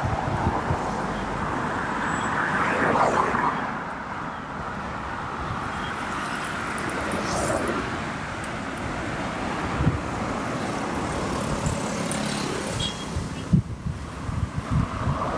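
Road traffic noise from a car moving through city streets: a steady rush of engine and tyre noise that swells to its loudest about three seconds in. A few short low thumps come near the end.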